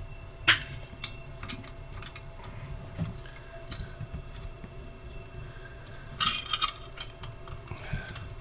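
Clicks and light metallic clinks of an autotuner's parts and case being handled and fitted back together: one sharp click about half a second in, scattered lighter ticks, and a quick cluster of clinks about six seconds in.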